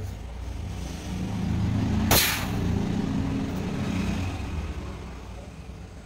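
A low rumble that swells and fades over a few seconds, with one short, sharp hiss about two seconds in.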